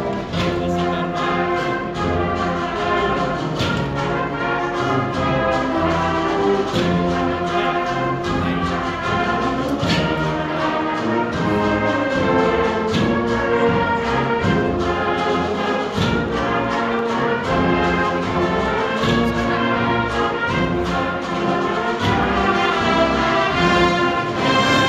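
Brass-and-drum processional band (agrupación musical) playing a Holy Week march live: trumpets, trombones and horns holding the melody over a steady drum beat.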